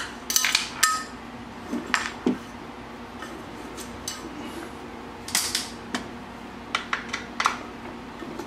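Small metal skate-frame hardware clicking and clinking as bolts, washers and a tool are handled on an inline skate frame, in scattered clusters of sharp clicks, one with a brief metallic ring about a second in.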